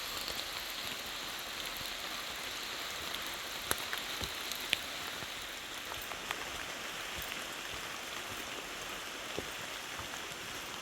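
Steady heavy rain falling, with scattered sharper taps of individual drops.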